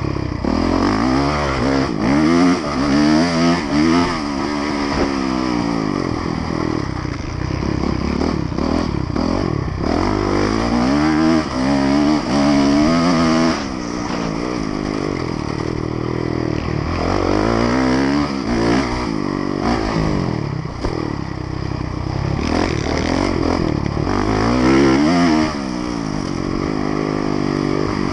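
Honda motocross bike's engine under race load, revving up and dropping back again and again as it is ridden round a dirt track, with short knocks through the ride.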